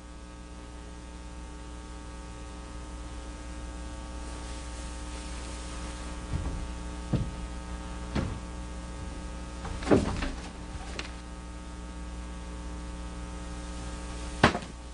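A steady low hum, with a few soft knocks scattered through the middle and one sharper knock near the end.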